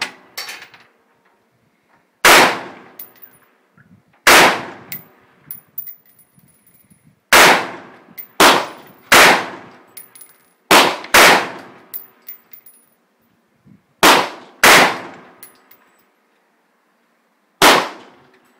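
AR-15 rifle fired in semi-automatic, about ten shots at uneven spacing, some in quick pairs less than a second apart. Each shot is followed by a short ringing echo.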